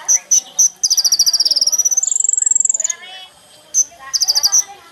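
Kolibri ninja sunbird singing: sharp, high-pitched chips a few tenths of a second apart, then a rapid trill, a held high whistle about two seconds in, and another fast trill near the end.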